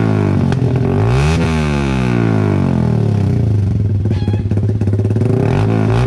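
Motorcycle engine running through an aftermarket Pro Liner muffler for a sound test: revved once about a second in, its pitch falling back over the next two seconds, then settling to a steady idle.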